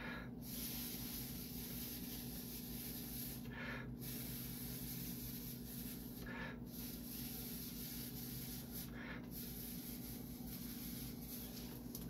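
Air hissing steadily out of a thin hose blown across wet epoxy resin, with short breaks about every three seconds.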